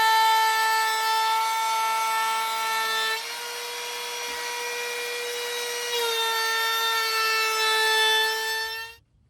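Avid CNC router spindle whining steadily at high speed while cutting oak, over a rasping cutting noise. The whine drops slightly in pitch and loudness about three seconds in, comes back up about six seconds in, and cuts off abruptly near the end.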